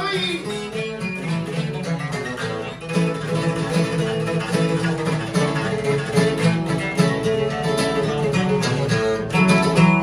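Takamine TT-400 acoustic guitars playing an instrumental interlude: a requinto picks a quick melodic run over a strummed rhythm guitar, without singing.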